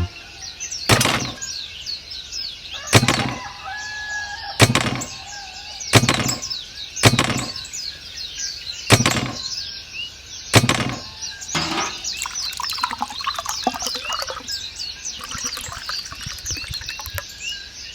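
Birds chirping steadily in the background, with a sharp knock or tap every one to two seconds for the first twelve seconds or so.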